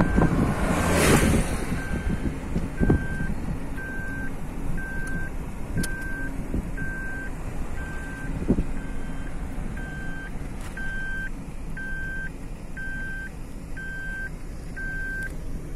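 A car's in-cabin warning chime beeping steadily, one short high beep about once a second, and stopping shortly before the end, over the low rumble of road and engine noise while driving. A burst of wind rush comes about a second in, and there are a couple of light bumps.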